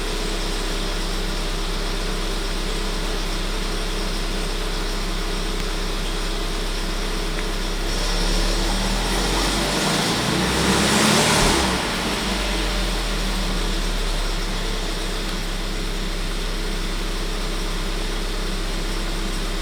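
Volkswagen 1.4 TSI 160 four-cylinder petrol engine running steadily, recorded to show the noise its timing chain makes. The sound swells briefly about eight to twelve seconds in, then settles back.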